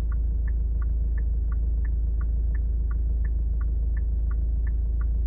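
Car turn-signal indicator ticking evenly, about three ticks a second, over the steady low hum of the engine idling in the cabin.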